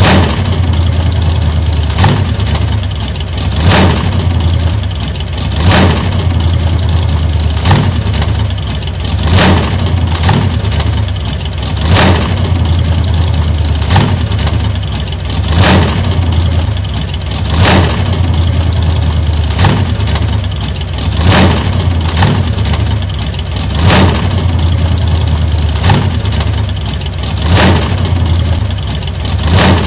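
1940s car engine running steadily with a deep, even hum, surging briefly about every two seconds.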